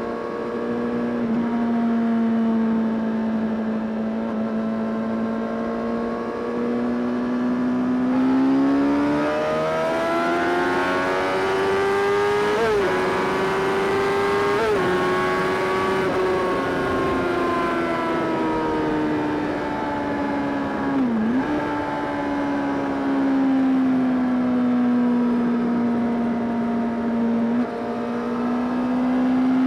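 Honda CBR600RR's inline-four engine under way on the road: running at steady revs, then revving up over several seconds with two brief dips in pitch, then easing off with the revs falling slowly and dipping once sharply, before settling back to a steady pull.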